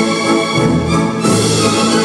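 Instrumental polonaise music playing as dance accompaniment.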